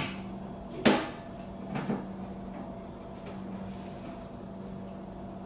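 A few sharp knocks and clicks of parts being handled and fitted together while a welder is reassembled, the loudest about a second in, over a steady low hum.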